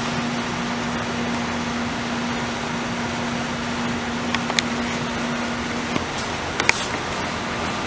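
Steady running noise with a hum from the paper cutter's hydraulic power unit; the hum stops about six seconds in, and a few light clicks come in the second half.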